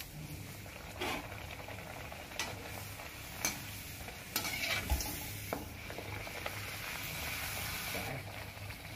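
A rice-flour puri deep-frying in hot oil in a metal kadai: steady sizzling, a little louder for a few seconds in the middle, with scattered light clinks of a slotted metal frying spoon against the pan.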